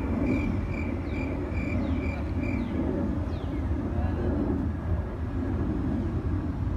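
Backyard outdoor ambience: a steady low rumble with birds chirping over it. Seven short, evenly spaced high chirps come in the first two and a half seconds, along with a few falling whistled notes.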